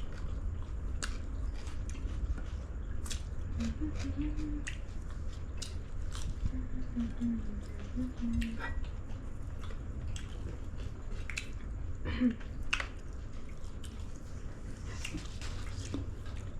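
A person chewing and biting food close to the microphone, with irregular wet clicks and smacks, over a steady low hum.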